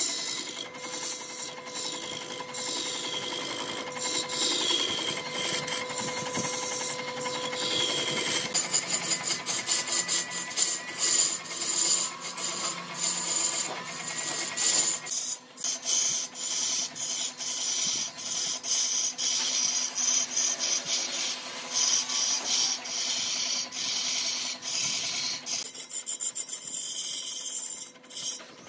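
Hand tool scraping and rubbing on wood in quick, repeated strokes, with a faint steady whine in the first third.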